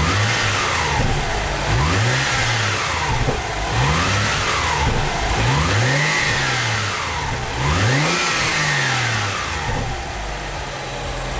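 BMW M135i's turbocharged 3.0-litre straight-six revved in short blips about every two seconds, each rise falling back toward idle, with a Pipercross panel air filter fitted in the stock airbox. It settles to a steady idle near the end.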